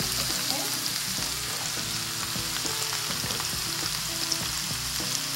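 A pan of bell peppers, mushrooms and onion frying in oil, with a steady sizzle.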